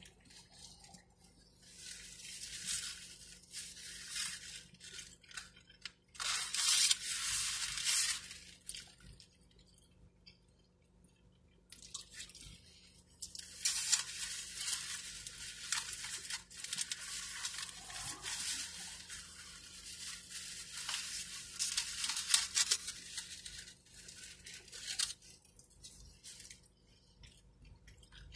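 Close-up eating sounds of a foil-wrapped burrito: chewing mixed with the crackly crinkling of the aluminium foil and paper wrapper, in two long stretches with quieter pauses between.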